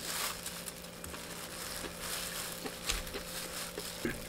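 Close-up chewing of crispy fried chicken and rice, with soft irregular crunches and crackles over a faint steady hum.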